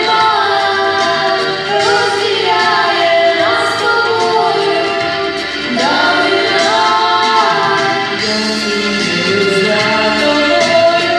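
Female vocal duet singing a Ukrainian pop song over instrumental accompaniment, the voices sliding up into long held notes.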